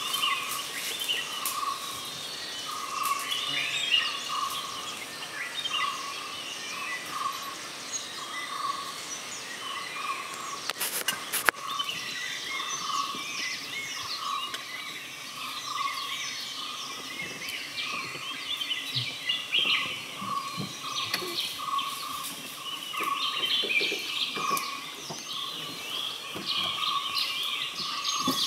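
Forest ambience of many birds chirping and singing, with one call repeating the same mid-pitched note over and over. A sharp click comes about eleven seconds in.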